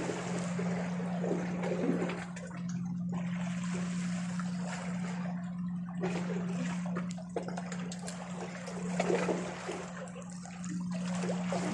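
Small sea waves washing and trickling over shoreline rocks, swelling and easing several times, over a steady low hum.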